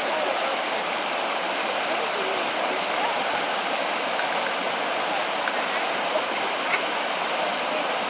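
Small stream rushing steadily over rocks, a continuous even rush of water.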